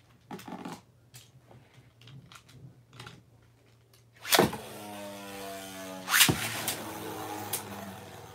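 Beyblade tops launched into a plastic Beyblade Burst stadium: a sharp snap about four seconds in, then a whirring that falls in pitch, a second snap about two seconds later, and then the tops spinning and scraping on the stadium floor.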